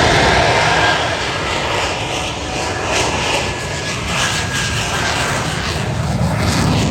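Jet-powered truck's jet engines running flat out as it races a low-flying airplane: a loud, continuous roar that comes up sharply at the start and holds.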